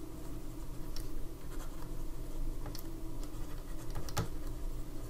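Stylus writing by hand on a tablet: light scratches and a few faint taps, over a low steady hum.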